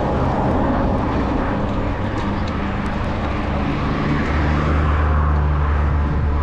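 Steady wind and riding noise on a bicycle-mounted camera's microphone. From about four seconds in, a low engine-like drone grows louder.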